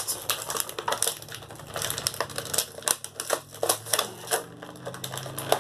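Plastic packaging of a boxed action figure being handled and pried apart: quick irregular clicks and crackles as the figure is worked free of its tray.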